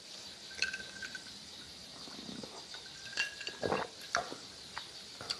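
A man sipping and swallowing fizzy homemade spruce-needle soda from a glass: soft gulps and small mouth clicks, most of them around three to four seconds in.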